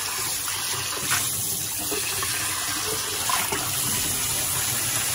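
Tap water running steadily into a bathroom sink as a shaving bowl is rinsed out under it.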